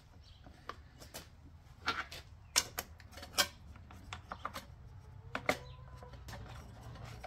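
Handling noise as a cardboard tube and seal are pressed into a leaf blower's plastic intake housing: scattered clicks and taps, a few of them sharper, over a low steady hum.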